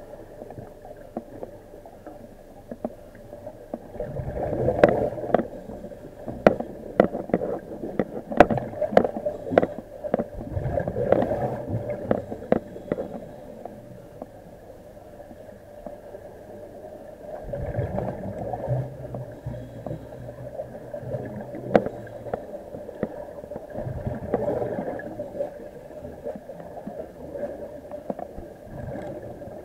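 Underwater sound of a diver breathing on an IDA-59M closed-circuit rebreather: low gurgling swells about every six or seven seconds over a steady hum, with a run of sharp clicks in the first half.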